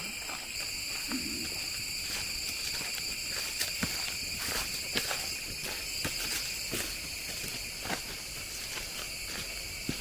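Steady shrill chorus of forest insects, several high tones held without a break, with scattered light footstep crunches on a dirt trail.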